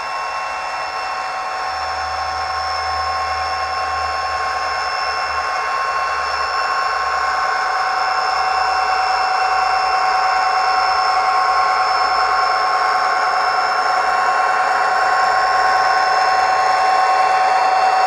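ESU LokSound decoder playing EMD SD45 diesel locomotive sound through an HO-scale model's small speaker: a steady whining hum over hiss, slowly getting louder.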